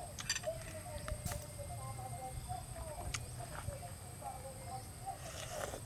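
Eating sounds: a metal spoon clicking and scraping on a ceramic plate, with chewing, as rice and soup are eaten. A faint wavering call, like a bird or farm animal, runs in the background.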